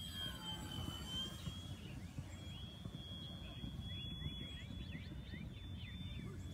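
Thin, steady whine of an RC foam Cessna's brushless electric motor and propeller in flight, dipping slightly in pitch about a second in, over a steady low rumble.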